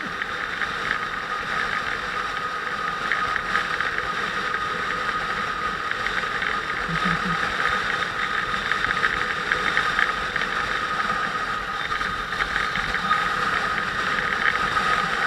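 Motorcycle riding at a steady cruise: engine running with wind noise over the microphone and a constant high whine.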